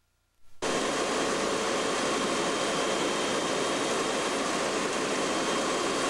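Steady rushing cabin noise of an aircraft in flight, with a faint steady whine, starting about half a second in after a brief silence.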